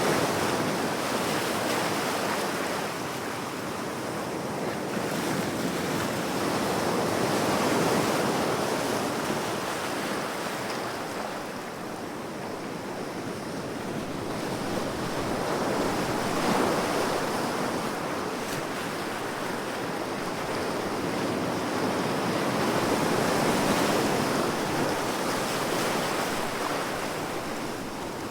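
Ocean waves washing onto the shore, a steady surf rush that swells and eases in slow surges about every eight seconds.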